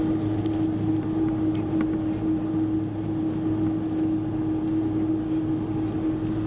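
Steady drone inside a Boeing 747-400's passenger cabin before takeoff, a constant hum with a held tone, with a few faint clicks.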